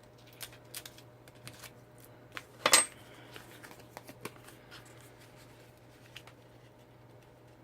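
Cardstock pieces being handled and folded on a work surface: scattered light taps and paper rustles, the loudest a short rustle a little under three seconds in.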